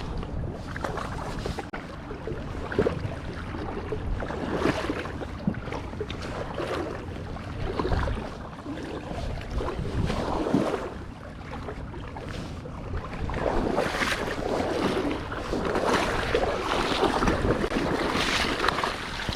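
Wind buffeting the microphone over rushing water, coming in gusts and strongest over the last few seconds.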